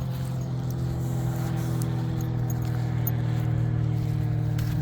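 A steady low engine drone, an even hum with its overtones, with a few faint light clicks over it.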